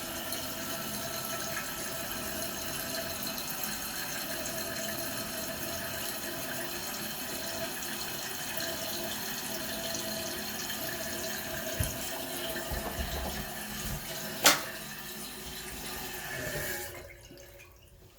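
Toilet tank refilling after a flush: water running steadily through the fill valve, then dying away and cutting off near the end as the tank fills. A single sharp click about three-quarters of the way through.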